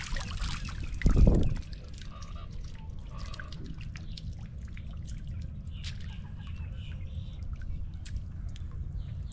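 A mesh dip net lifted out of shallow water, water pouring out of it, then dripping and trickling back into the water as it hangs draining. A single low thump comes a little over a second in.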